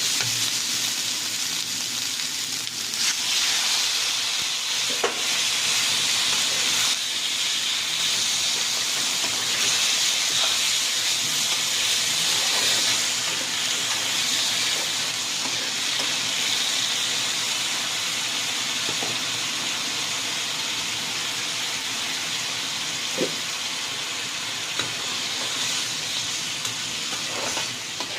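Kachki fish and eggplant frying in hot oil in a pan, a steady sizzling hiss, with a few light clicks scattered through.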